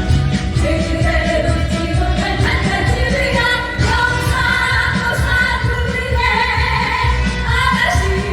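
Live trot band music with a steady, driving beat and a held melody line, with female singing.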